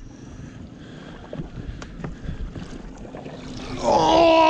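Mercury outboard motor idling in neutral with a few faint knocks. Near the end, a man's loud, drawn-out excited shout, falling in pitch, as the salmon comes into the net.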